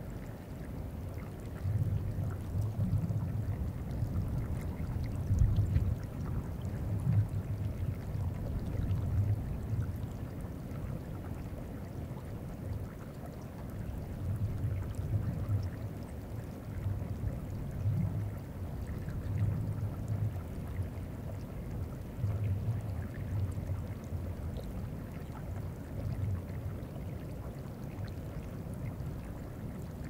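Deep, irregular bumping and rumbling of glacier ice shifting and moving, picked up through geophones in the ice. It comes in uneven clusters every second or two, over the soft trickle of meltwater on the glacier surface.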